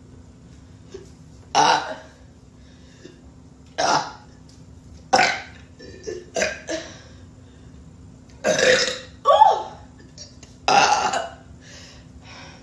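A person burping repeatedly: about eight separate burps a second or two apart, some short and some longer and drawn out.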